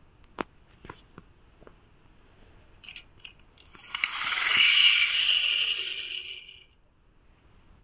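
Light clicks of a die-cast toy race car being picked up and handled, then the car sent off across a hard floor: a loud whir of its wheels and mechanism that builds about four seconds in and fades away over two and a half seconds as it rolls off.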